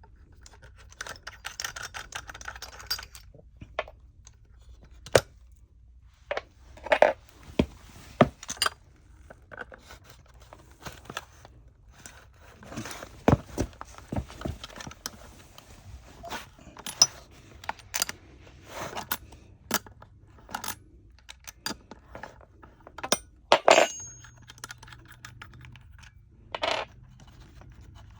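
Hands working on a push-button shower valve and its cartridge parts: a long run of irregular clicks, clinks and scrapes, with several sharper knocks.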